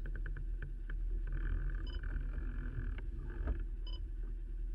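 Small outboard motor idling in neutral with a low, steady rumble. A VHF radio gives short beeps about every two seconds, its DSC alarm signalling an active Mayday call. A few clicks and rustles of rope being handled come in the middle.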